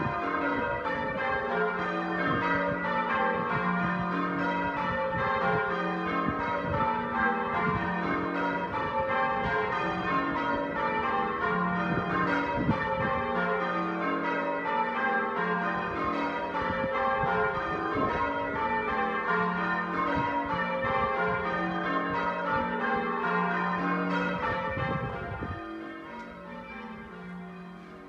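A ring of church bells being change rung in the tower: a steady, even stream of bell strikes in shifting order, the notes stepping through repeating descending patterns. It sounds quieter for the last couple of seconds.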